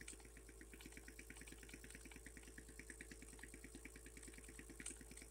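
Small single-acting Taolei pneumatic model piston engine running on low-pressure compressed air: a faint, fast, even rhythm of puffs and clicks, with a steady low hum underneath.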